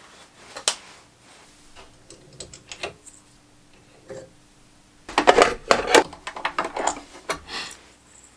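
Hard objects being handled at a sewing bench: scattered clicks, then about five seconds in a dense, irregular clatter of knocks and clicks lasting about three seconds.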